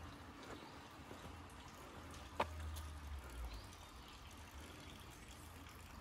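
Faint, steady trickle of running water, with one sharp click a little before halfway.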